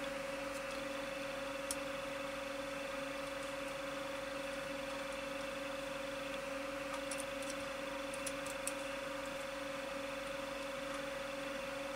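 Steady electrical hum with a constant higher whine over faint hiss, the background noise of the workbench. A few faint light clicks of small watch parts being handled, several of them close together about two-thirds of the way through.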